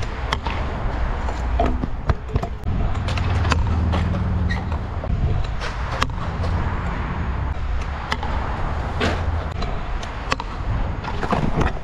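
Stunt scooter wheels rolling and carving on the concrete of a skatepark bowl: a steady low rumble broken by frequent sharp clicks and knocks as the wheels and deck cross seams and the steel coping.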